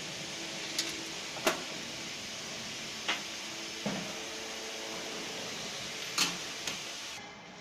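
Steady workshop background noise with about six sharp metal clanks and knocks at irregular intervals, the loudest about a second and a half in.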